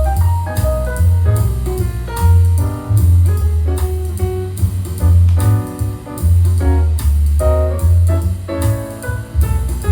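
Jazz-style music with piano chords over a heavy bass line and drums with cymbal hits, played at a steady, loud level.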